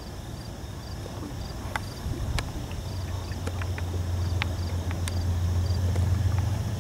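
Low, steady hum of a distant Amtrak passenger train with P32AC-DM diesel locomotives passing across the water, growing louder from about two seconds in. Faint insect chirps tick two or three times a second.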